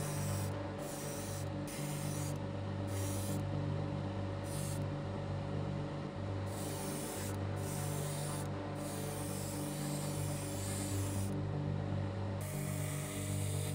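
Airbrush spraying in short hissing bursts as the trigger is pulled and released, mostly under a second each with one longer pass of about two and a half seconds past the middle. A steady hum runs underneath.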